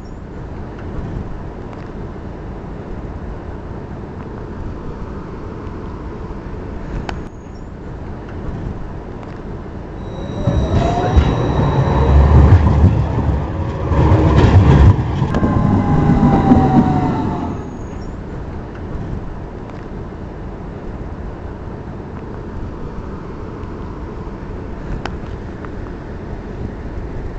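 Model electric tram running on its layout's track: a steady rumble of motor and wheels on the rails. It grows louder for several seconds in the middle as the tram passes close, with a whine that rises and then falls.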